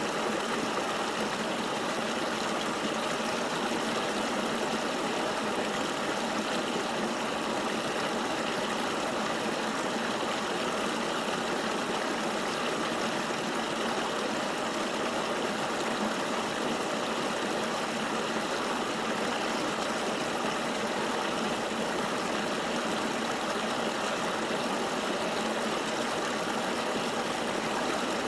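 River water flowing steadily, an even rushing wash with no breaks.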